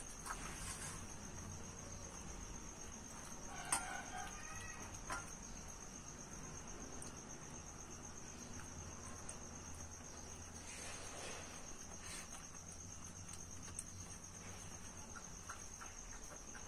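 A cricket's continuous high-pitched trill, with a light clink and a short call about four seconds in.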